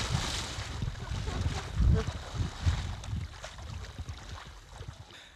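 Water splashing as a man runs and wades into a lake, with the microphone carried along in his raised hand. Irregular low thumps and wind on the microphone run under it, and the splashing dies down toward the end as he slows to a walk.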